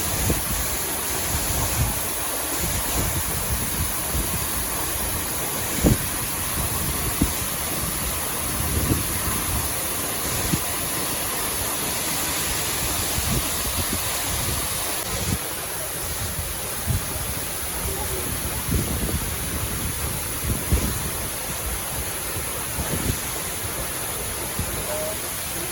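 Waterfall pouring into a pool: a steady rushing noise, with irregular low buffets of wind on the microphone and two sharp thumps about six and seven seconds in.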